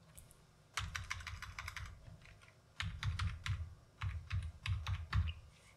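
Typing on a computer keyboard: a quick run of keystrokes about a second in, then a second, longer run from about three seconds in.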